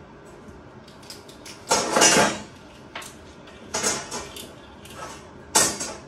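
Steel bar stock clanking and scraping against a metal workbench as the pieces are handled, in three short bursts with a metallic ring, the longest about two seconds in.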